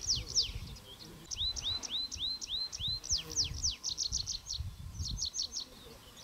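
Birds calling: quick runs of short, sharp, falling notes, and a little over a second in, a series of six rising, hooked whistles. A low rumble sits underneath.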